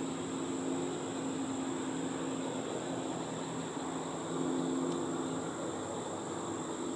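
Steady low engine drone, swelling about four seconds in, over a constant thin high-pitched whine.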